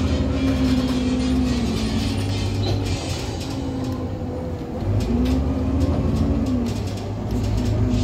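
City bus's engine and drivetrain heard from inside the bus as it drives slowly. The engine swells twice, each time with a whining tone that rises and falls.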